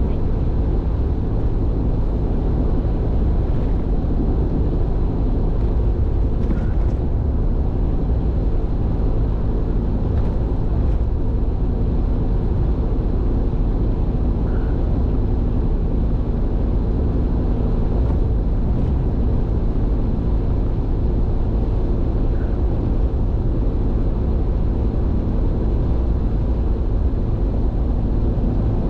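A car cruising on an expressway: a steady, even rumble of engine and tyre noise as picked up by a vehicle-mounted camera.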